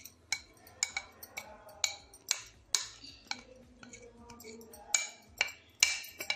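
A kitchen utensil tapping and scraping against a mixing bowl while thick cake batter is scraped out of it, giving sharp clinks about twice a second.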